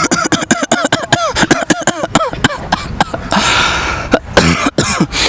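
A person coughing on purpose, hard and fast without stopping: a rapid string of short voiced coughs, several a second. The coughs break off briefly about three seconds in, then start again.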